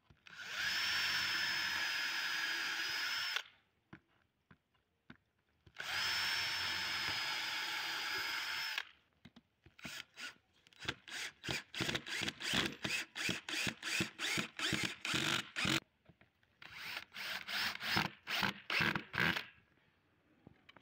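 Cordless drill boring two pilot holes through a wooden board, each a steady run of about three seconds with a constant whine. It then drives screws into the wood in many short trigger bursts, in two spells, stopping shortly before the end.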